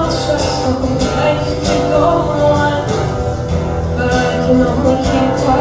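Live performance of a song: guitar-backed accompaniment under a sung melody with long held notes.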